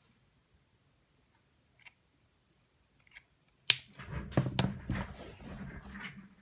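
A few faint taps, then a sharp click and a couple of seconds of clattering and rustling as plastic art markers are handled and moved about.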